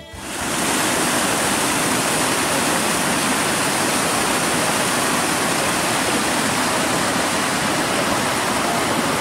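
Spring water gushing out of a hillside and cascading over rocks in a small waterfall: a steady rush of water that fades in about half a second in.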